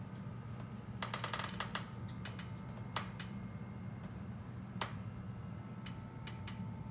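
A quick run of sharp clicks about a second in, then a few scattered single clicks, over a steady low hum.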